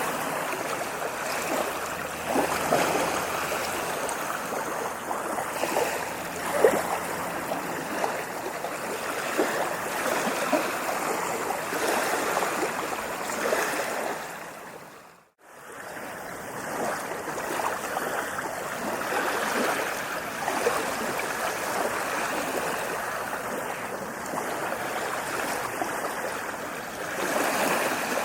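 Ocean waves breaking and washing up on a beach, a steady rush of surf. About halfway through, the sound fades briefly to near silence and then comes back.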